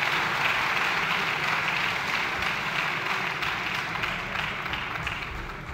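Many people in a legislative chamber applauding, the applause dying away near the end.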